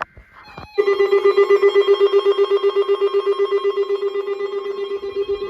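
Weather radio warning alarm sounding for the National Weather Service weekly test: a loud, rapidly pulsing alert tone that starts abruptly about a second in and holds steady.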